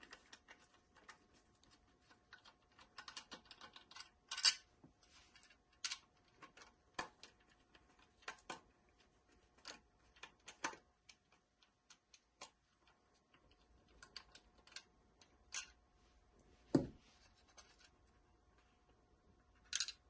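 Hand screwdriver backing small screws out of a hard plastic tablet cradle: scattered light clicks and ticks of metal on plastic and of handling the plastic housing, with a dull knock near the end.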